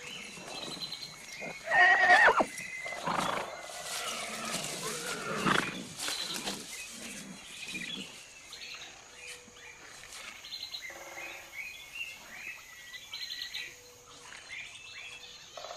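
Horses neighing in alarm, spooked by a tiger close by, with the loudest whinny about two seconds in and more calls over the next few seconds before it goes quieter.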